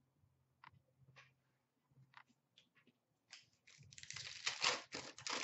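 A few faint taps, then from about three seconds in a dense crinkling and rustling as a foil hockey card pack (Upper Deck Series 2) is opened and its cards are handled.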